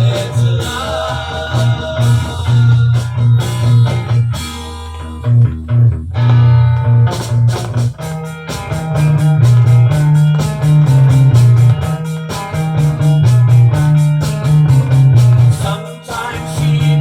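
A 1960s beat-group single playing, with guitar over a steady bass line. A regular drum beat comes in strongly about seven seconds in.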